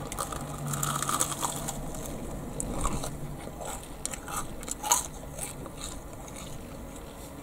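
A person biting into a crispy battered, deep-fried pizza (a pizza crunch) and chewing it, with scattered crunches of the hot, crisp batter. The loudest crunch comes about five seconds in.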